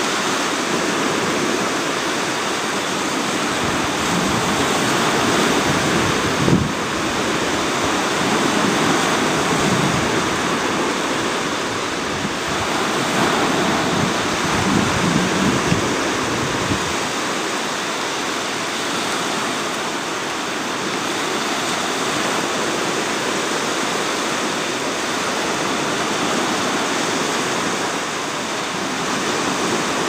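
Ocean surf washing onto a beach: a steady hiss of breaking waves, heavier and deeper through the first half, with a short thump about six seconds in.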